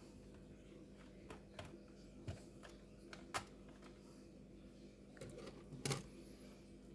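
Scattered light clicks and taps from small parts being handled on an opened laptop, over a faint steady hum; the sharpest click comes near the end.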